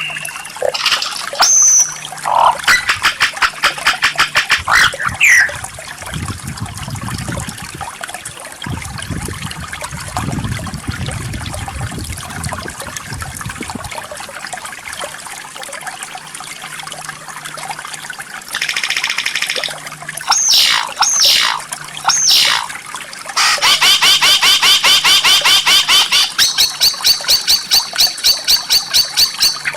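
White-rumped shama singing: scattered sweeping whistles, then a long burst of fast, evenly repeated notes in its last few seconds. A faint trickle of running water lies under the song.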